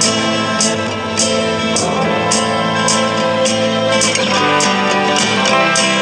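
Background instrumental music with sustained tones and a steady beat.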